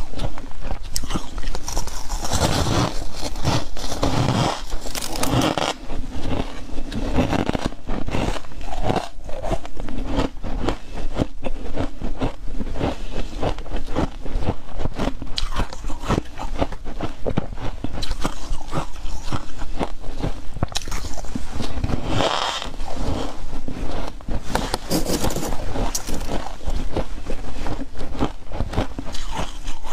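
Close-up crunching and chewing of refrozen freezer frost ice: dense crisp crackles one after another, with the scrape of frost chunks being handled in a plastic freezer drawer.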